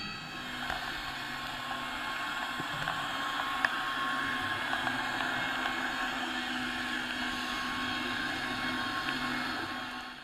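Steady mechanical drone with hiss, heard underwater through a GoPro dive housing, cutting off right at the end.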